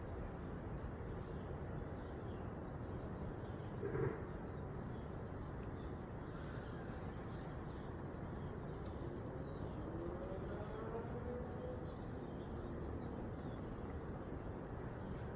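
Steady outdoor background noise with faint bird chirps and a short knock about four seconds in. From about eight seconds in, a faint wailing tone glides up and then back down over several seconds: the strange high-pitched wail from the nearby military base, which the recorder suspects is a malfunctioning siren.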